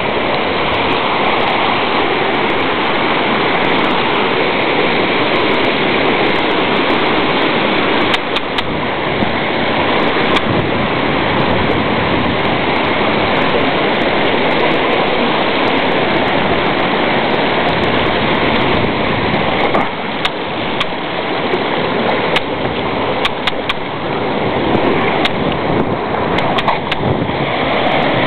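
Waterfall rushing: a loud, steady noise of falling water, with a few scattered clicks.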